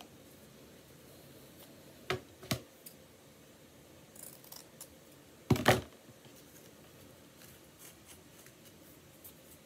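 Small scissors snipping fabric a few times in short clicks, with a louder double knock about halfway through.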